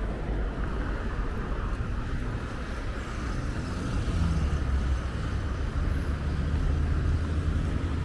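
Road traffic with a motor vehicle's engine running close by and growing louder about three and a half seconds in, over a steady wash of outdoor noise.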